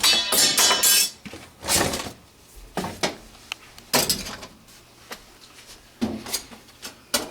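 Sheet-metal air handler panels and tools being handled: a rattling metallic clatter in the first second, then a string of separate knocks and scrapes, as the unit is opened up for inspection.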